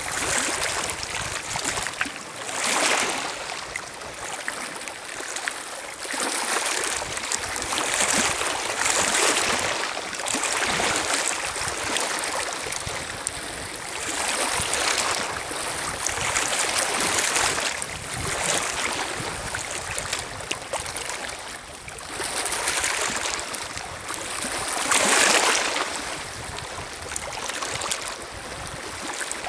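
Small lake waves lapping and washing over a pebble shore, swelling and fading every few seconds, with the loudest wash near the end.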